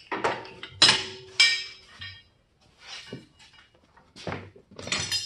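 Steel hand tools clanking and clinking as they are handled and set down: three sharp metal clanks in the first second and a half, one with a short ring, then a few quieter knocks.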